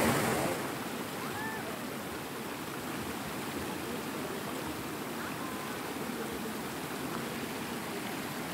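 Water rushing steadily over a small rocky river cascade.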